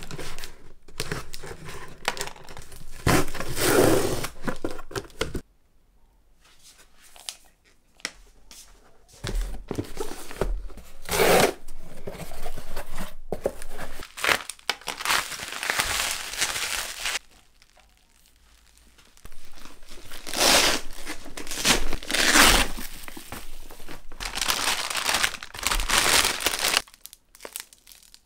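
Cardboard delivery box being unpacked: packing tape slit and torn, flaps pulled open, and plastic and foil insulated packaging rustled and crinkled. The rustles come and go, with two quieter pauses.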